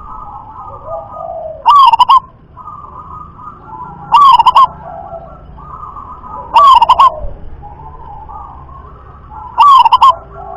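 Zebra dove (perkutut) cooing: four loud, short calls about two and a half seconds apart, each a quick run of three or four notes. Fainter, continuous cooing of other doves runs underneath.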